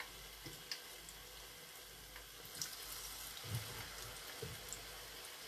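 Faint sizzling of sweet potato fritters deep-frying in hot oil, with a few small pops and soft knocks.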